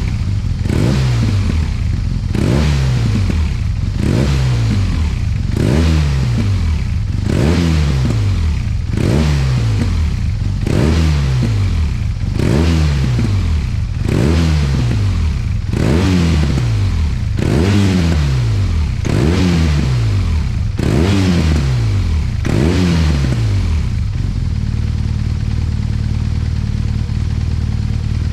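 BMW R1200RT horizontally opposed twin-cylinder (boxer) engine breathing through its factory Akrapovic silencer, free-revved at standstill. Short throttle blips come about every 1.7 seconds, each rising sharply and falling back. Near the end it settles to a steady idle.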